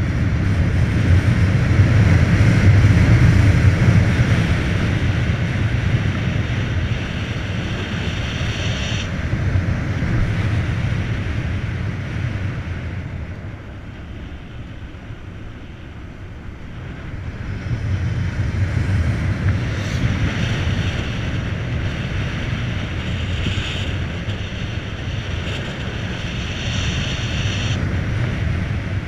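Wind buffeting the microphone and tyre roar from a Volta BCN Sport electric motorcycle riding at road speed, with a faint high whine during the faster stretches. The rush eases for a few seconds in the middle as the bike slows for a bend, then builds again.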